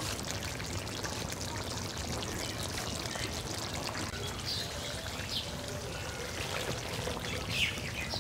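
Pointed gourd malai curry simmering in the pan, a soft steady bubbling and crackling, with a few faint bird chirps in the second half.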